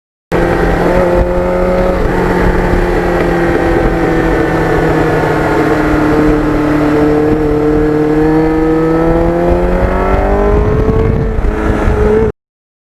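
Kawasaki GPX750R's liquid-cooled inline-four engine running at road speed under a low rush of wind noise; its note sinks slowly, then climbs steadily over the last few seconds as the bike accelerates. The sound starts and cuts off abruptly.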